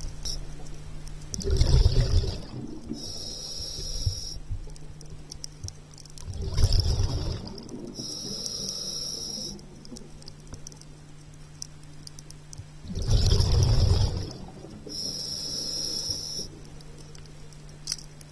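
A scuba diver breathing through a regulator underwater: three breaths, each a loud rush of exhaled bubbles followed by a hiss of inhalation through the demand valve, about one breath every six seconds. A steady low hum runs underneath.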